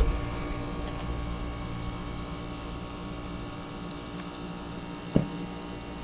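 Steady hum of a Climate Master geothermal heat pump running in heat mode, with one short knock about five seconds in.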